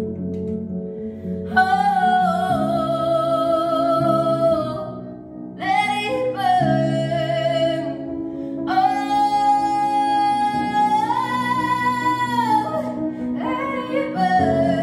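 A female voice singing a slow ballad over upright piano chords, holding several long notes.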